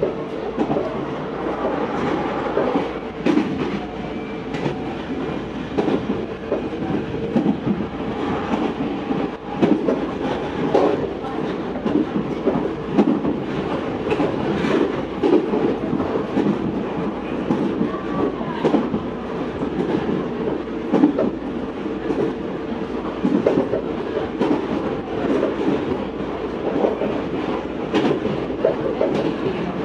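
Meitetsu 4000 series electric train running at speed, heard from inside the car: a steady rumble of wheels on rail with a constant hum and frequent clicks from the rails.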